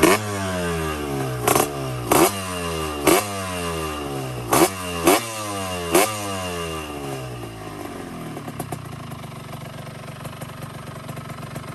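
Yamaha RXZ 135's two-stroke single-cylinder engine revved in quick, sharp throttle blips, about seven in the first six seconds, the revs falling back after each one. It then settles to a steady idle.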